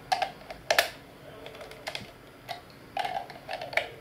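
Irregular plastic clicks and rattles from a WR01 WLAN repeater's detachable plug insert being fitted into and worked against its white plastic housing. The sharpest clicks come near the start and just before one second in.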